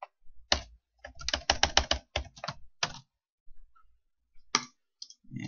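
Computer keyboard keystrokes: two single key presses, then a quick run of about a dozen keys over a second and a half, and one last key press near the end.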